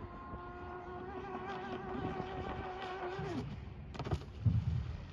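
Electric RC hydroplane's motor whining at a steady high pitch as the boat runs, the pitch wavering slightly and then dropping away about three and a half seconds in. A sharp knock and a low thump follow near the end.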